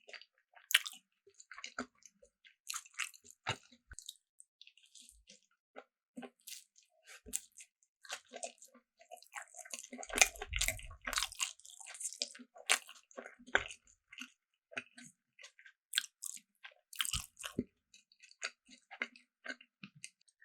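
Close-miked chewing and biting of food, with many short, crisp crunches. There is a denser, louder flurry about halfway through.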